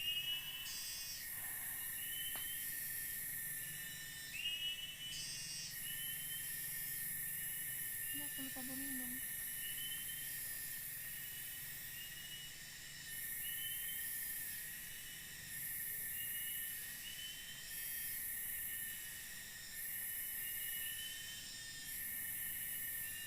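Night insect chorus in tropical forest: a steady high trill, a short rising chirp repeating about once a second, and a shriller high buzz that starts and stops in stretches of a second or two.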